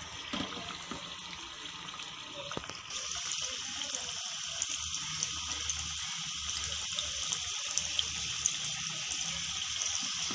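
Pakoda balls of bread and chicken dough deep-frying in hot oil: a steady sizzle with scattered small pops. It gets louder about three seconds in, as more balls go into the oil.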